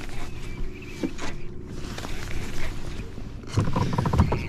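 Kayak's electric motor humming steadily, with scattered clicks and knocks. A louder, rougher rumble comes in near the end.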